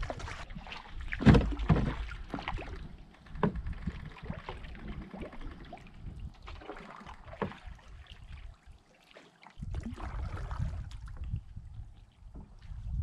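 A canoe being paddled on a lake: water sounds from the strokes and irregular wooden or hull knocks as the paddle hits the canoe, the loudest knock about a second in.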